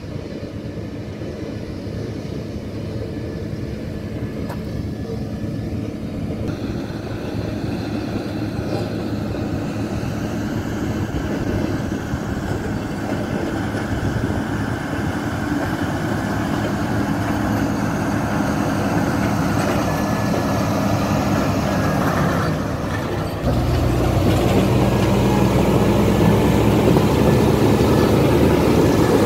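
Caterpillar 120K motor grader's diesel engine running as the grader drives closer, growing steadily louder. About 23 seconds in it jumps louder and deeper as the machine is right alongside.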